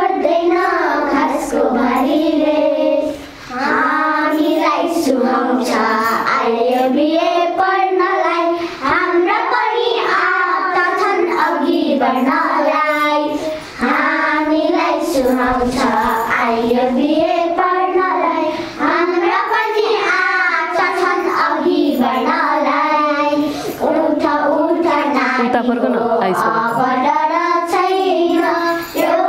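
A group of young girls singing a song together in unison, unaccompanied, with a short breath between phrases about every five seconds.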